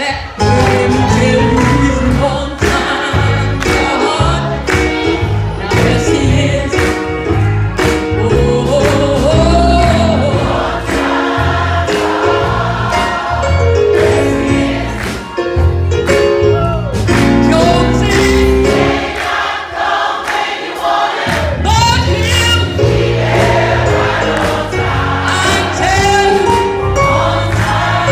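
Gospel choir singing with musical accompaniment. The low accompaniment drops out for about two seconds past the middle while the voices carry on, then comes back.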